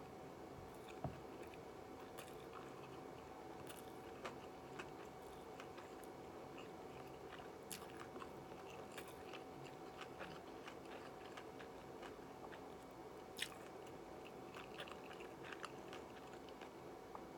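Close-miked chewing of a crispy shrimp tempura sushi roll, with soft crunches and small mouth clicks scattered through it over a faint steady hum; two sharper clicks stand out, about a second in and about three quarters of the way through.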